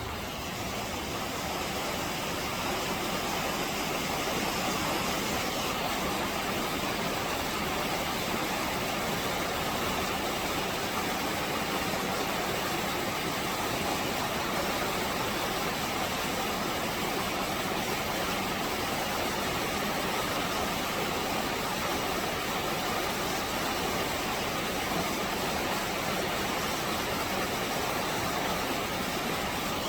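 Car driving along a road: steady engine and tyre noise.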